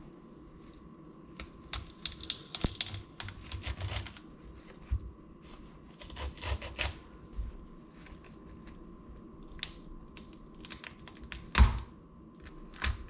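Cauliflower head being cut with a chef's knife on a wooden cutting board and broken apart by hand: crisp crunching and tearing of the leaves and stalk in irregular spells, with a solid knock on the board near the end.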